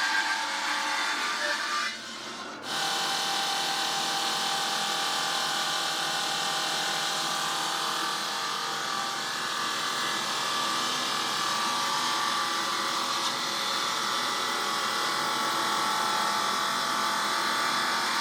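Industrial stone-cutting saw running through a stone block: a steady grinding hiss with several ringing tones held over it. It briefly drops away about two seconds in, then carries on steadily.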